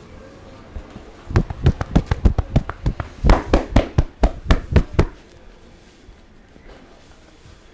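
Massage percussion: a barber's hands striking rapidly on the body during a head massage, a run of sharp slaps at about six a second that starts about a second in and stops suddenly about four seconds later.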